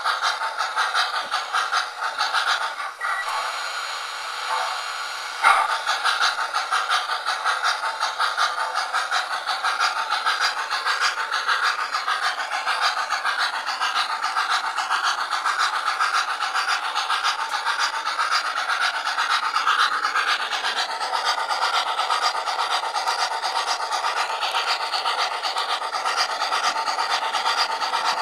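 O-gauge model 0-6-0 steam locomotive running along the layout's track, heard up close from a camera riding the train: a steady, fast rasping rhythm. It drops away for about two seconds near the start, then comes back suddenly.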